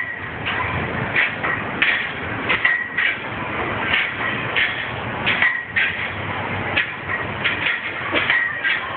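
Metal scaffolding bar knocking and squeaking irregularly under a man's weight as he does muscle-ups, over steady street noise.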